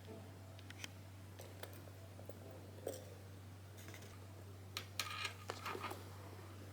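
Faint, scattered clicks and light taps of small objects being handled, a few of them close together about five seconds in, over a steady low hum.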